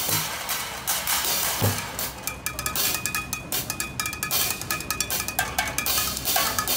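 Street drummer's improvised kit of buckets and metal pans played with sticks: one low thump about one and a half seconds in, then a fast run of stick strikes on metal that ring with a clear, steady tone.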